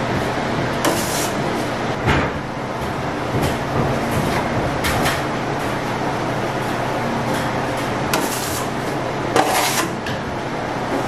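A hand trowel scraping setting-type joint compound across a plaster wall in repeated sweeping strokes, about six of them, the strongest about two seconds in and near the end, over a steady background hiss.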